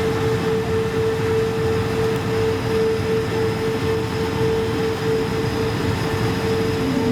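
Cabin noise of an Airbus A220-300 with its Pratt & Whitney PW1500G geared turbofans: a steady rush with a constant mid-pitched hum, and a second, lower tone joining near the end.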